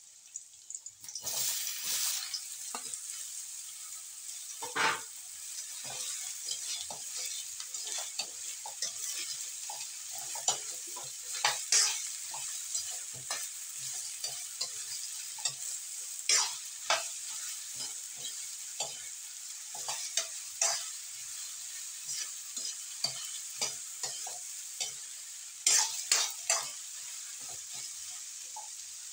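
Sliced bottle gourd (upo) tipped into a hot wok of sautéed onions about a second in, then sizzling steadily in the oil. A spatula stirs and scrapes against the wok throughout, with a few louder scrapes.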